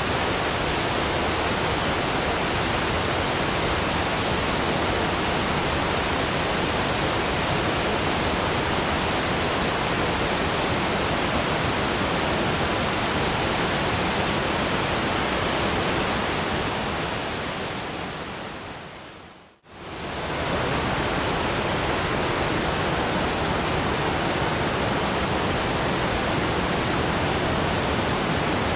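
Steady rushing noise from a brown-noise relaxation track. It fades gradually to near silence about 19 seconds in, then quickly swells back to full level, like a track looping.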